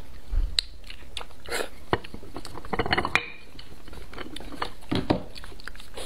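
Close-up eating sounds: marrow being sucked out of roasted beef bone sections and chewed, in scattered short clicks and smacks, with a louder cluster about three seconds in and another about five seconds in.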